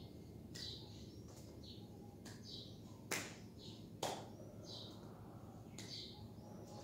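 A small bird chirping over and over, short high chirps about once a second. Two sharp clicks about three and four seconds in.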